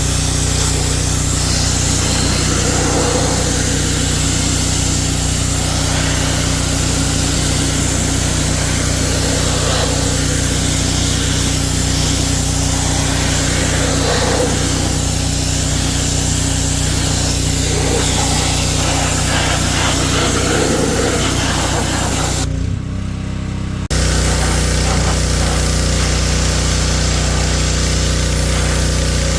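A motor running steadily with a low, even hum. It briefly drops out about three quarters of the way through, then carries on.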